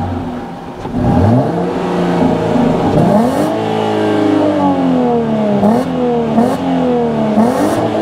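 2023 Jeep Gladiator's naturally aspirated 3.6-litre Pentastar V6, heard at the stock tailpipe, idling just after start-up and then revved repeatedly, the pitch rising with each blip of the throttle and falling back.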